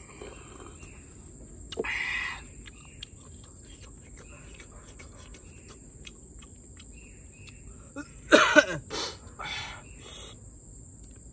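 Mouth noises of someone eating grilled snails, sucking the meat out of the shells in short slurps. Two clusters of slurps stand out, one about two seconds in and a louder one around eight to nine seconds in. Small clicks of shells and bamboo skewers are scattered throughout.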